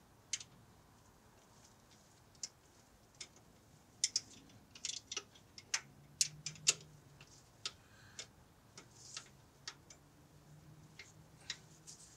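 Irregular metallic clicks and clinks from a socket on a long extension being fitted to and turned on a transmission bell housing bolt. The clicks come singly and in small clusters, busiest in the middle.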